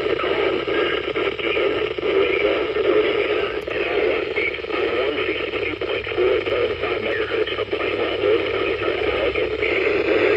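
NOAA Weather Radio receiver playing a weak, static-filled broadcast: a steady hiss squeezed into a narrow, tinny band, with a muffled, fluttering sound beneath it too faint to make out.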